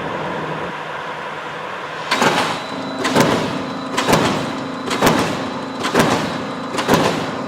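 Production machine for drywall straight hangers running with a steady motor hum. About two seconds in, its press begins stamping at about one stroke a second, each a sharp metallic clack with a brief ring.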